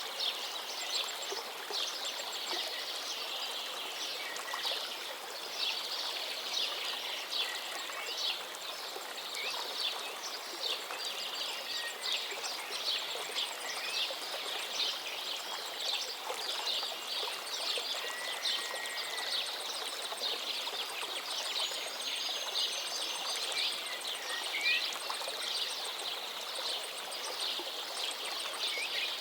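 Shallow river water babbling and splashing steadily over stones, with a few short bird chirps now and then.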